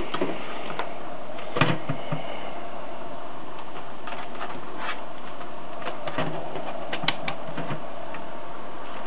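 Scattered clicks and knocks from hands handling the equipment and the camera, over a steady background hum.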